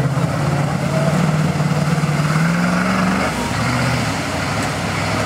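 Old Ford 4x4 pickup's engine pulling through a mud pit: it climbs in pitch between about two and three seconds in, then drops back to a lower, steadier note.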